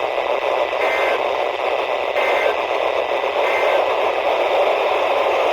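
Weak NOAA Weather Radio reception: steady static hiss with three faint, short two-tone data bursts about a second and a half apart, the pattern of a SAME end-of-message signal.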